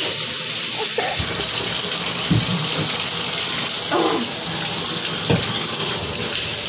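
Bathtub tap running steadily, water pouring into a tub during a dog's bath, with a few brief separate sounds over the flow.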